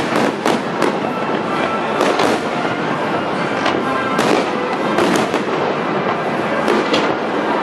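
Aerial fireworks shells bursting one after another: about a dozen sharp bangs at irregular intervals over a continuous loud wash of crackle and echo.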